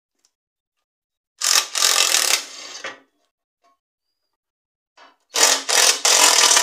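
Cordless drill-driver unscrewing the side-cover bolts of a Commer TS3 diesel engine, running in two bursts of about a second and a half each, each trailing off more quietly at the end.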